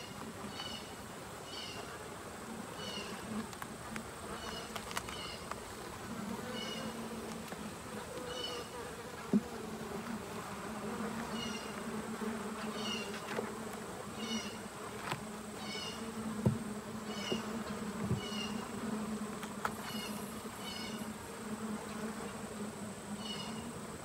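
Honey bees buzzing over an open hive in a steady, even hum. A few light wooden knocks come as the frames are handled, and a short high chirp repeats about once a second in the background.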